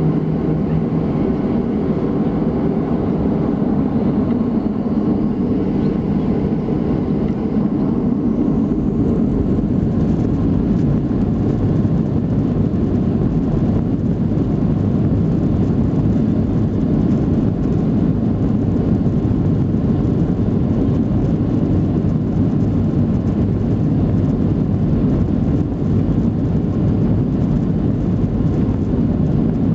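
Cabin noise inside a Boeing 737-700: a steady, loud, deep rumble from its CFM56-7B jet engines and the airflow, with a faint high whine that rises between about four and nine seconds in.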